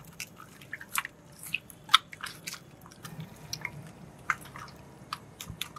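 A hand squishing and turning raw chicken pieces in a wet marinade in a stainless steel bowl: irregular squelches and clicks, the sharpest about two seconds in.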